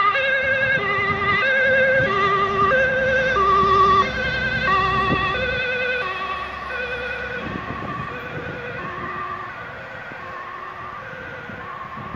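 Dutch ambulance two-tone siren, switching back and forth between a high and a low warbling note, each held just under a second. It is loudest about four seconds in as the ambulance passes, then fades as it drives away, with tyre and engine noise beneath it.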